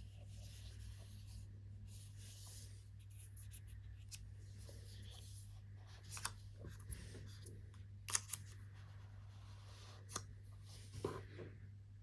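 Faint rubbing and sliding of packaging being handled, with a few sharp clicks and taps; the loudest comes about eight seconds in. A steady low hum runs underneath.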